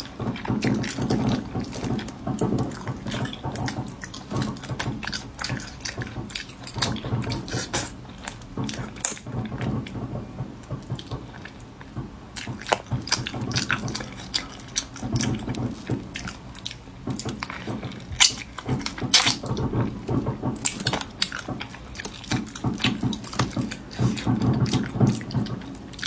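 Wet eating sounds from a cooked softshell turtle in sauce being pulled apart by hand and its meat and skin sucked and chewed: many sharp wet clicks, smacks and slurps throughout.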